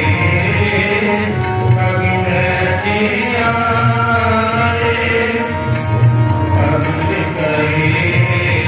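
Kirtan music: tabla playing under steady held melodic notes.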